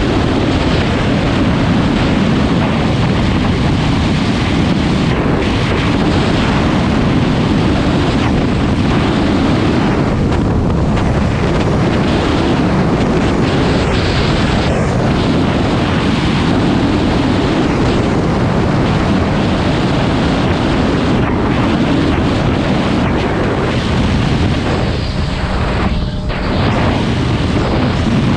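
Steady wind roar buffeting the microphone, with the Suzuki DR650 RSE's single-cylinder engine running underneath at an even cruising speed. The level eases slightly near the end.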